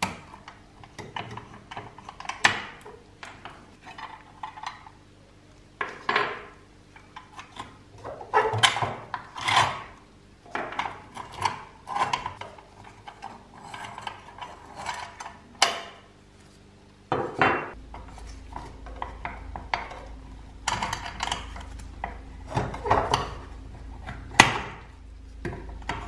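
Steel pliers working rusty pins and linkage loose on a pressed-steel Tonka T6 toy bulldozer: irregular metal clinks, taps and short scrapes as the parts are gripped, pulled off and set down.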